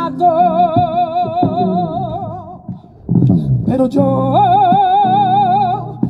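A woman sings a copla, holding two long notes with wide vibrato over guitar accompaniment. There is a short break between the notes about three seconds in.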